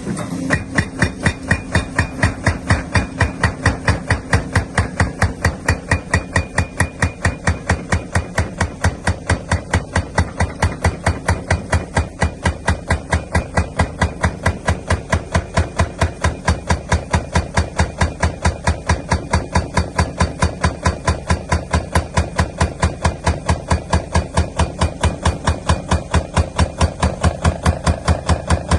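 Hydraulic breaker hammering with a steady, even rhythm of about four blows a second, starting abruptly.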